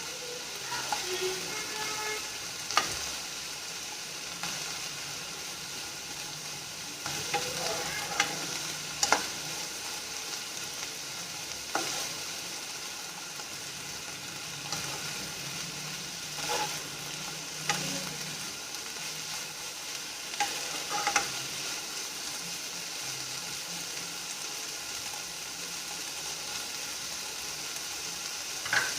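A masala of coriander and mint leaves sizzling steadily as it fries in a pan, with a spatula now and then scraping and knocking against the pan while stirring.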